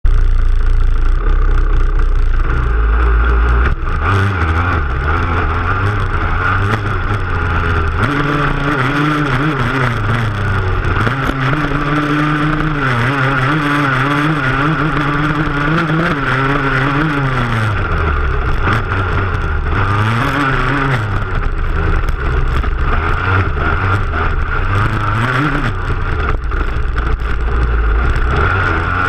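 Dirt bike engine revving hard, its pitch climbing and dropping again and again as the bike is ridden across a bumpy stubble field, heard from a camera on the rear fender. A heavy low rumble fills the first few seconds.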